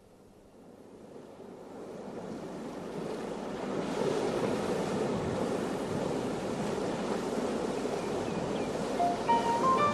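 Recorded ocean surf, a steady rush of waves that fades in over the first few seconds and then holds. Near the end a few short rising musical notes start a song intro over it.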